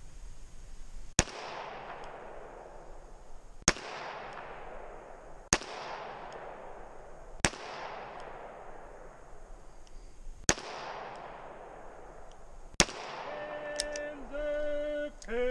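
Six handgun shots fired one at a time, about two to three seconds apart, each followed by a long rolling echo. Near the end comes a drawn-out pitched tone or call.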